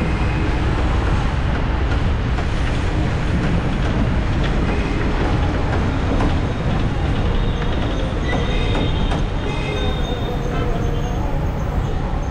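Steady low rumble and rattle of a moving vehicle in traffic, with brief high squeals about eight to ten seconds in.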